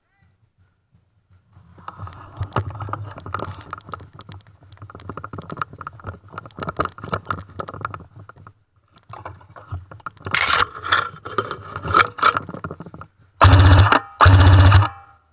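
Scraping, rustling and clicking of movement and gear handling, then two long full-auto bursts from an airsoft M60 support gun, loud and rapidly pulsed, in the last two seconds.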